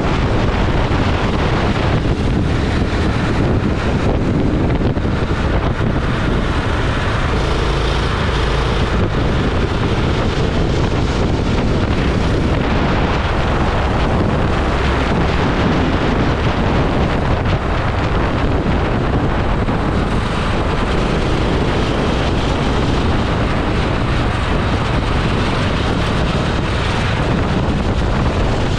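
Go-kart engine running at race speed, with heavy wind buffeting on the onboard camera microphone.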